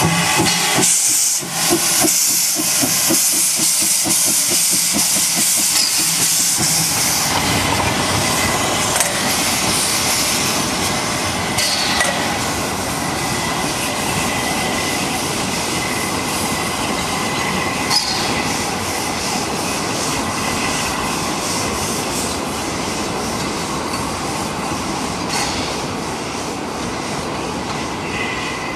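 Narrow-gauge steam tank locomotive 99 773 starting away with its train: loud steam hiss over the first several seconds. Then the train rolls past, with wheel clatter, a few sharp knocks and a faint wheel squeal.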